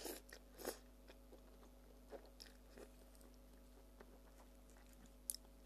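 A person slurping a forkful of instant noodles at the start, then chewing quietly with a few faint mouth clicks.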